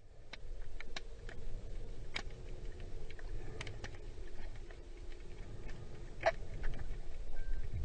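Muffled underwater ambience picked up through a GoPro during a river dive: a low rumble with scattered sharp clicks and ticks, the loudest about six seconds in.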